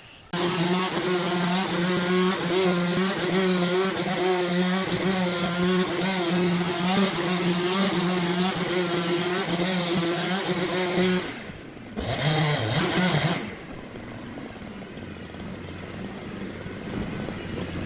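A motor running loud at a steady pitch, starting abruptly and cutting off about eleven seconds in. It runs again briefly about a second later, then a quieter steady noise remains.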